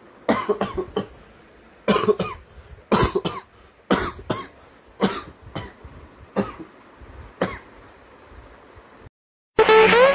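A sick young man coughing again and again in short bouts, mostly pairs of coughs about once a second, from a cough that has lasted three days along with a fever. Near the end the coughing stops, there is a moment of silence, and music starts loudly.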